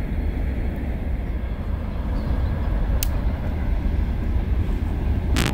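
Steady low rumble of a distant freight train, an electric locomotive hauling hopper wagons, passing. Two sharp clicks cut through it, one about three seconds in and one near the end.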